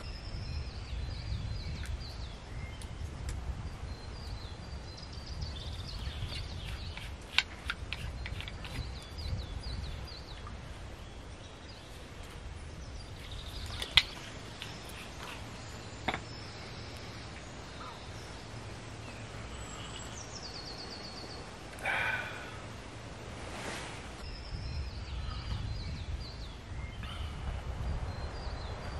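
Small birds singing and chirping on and off over a low rumble, with a few sharp clicks, the loudest about seven, fourteen and sixteen seconds in.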